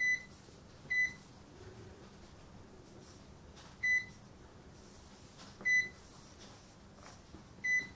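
Sam4S ER-900 series cash register keypad beeping as its keys are pressed one at a time: five short, high beeps at uneven intervals.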